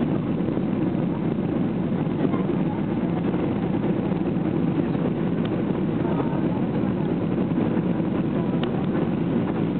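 Steady engine and airflow noise inside the cabin of a Boeing 737-800 on its landing approach with flaps extended, heard from a window seat over the wing.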